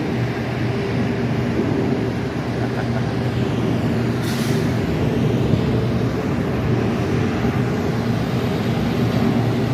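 Heavy diesel engine of railroad equipment running steadily at a constant pitch, with a short hiss about four seconds in.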